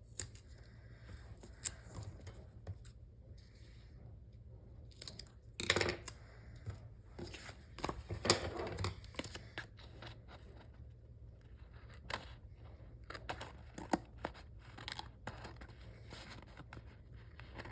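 Paper stickers being peeled and handled on a planner page: quiet crinkling and rustling with scattered light taps, and two louder rustles about six and eight seconds in.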